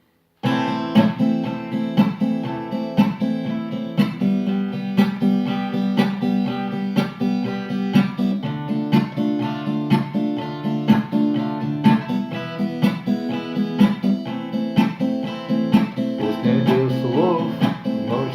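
Acoustic guitar strumming chords in a steady rhythm, the instrumental introduction to a song, starting about half a second in.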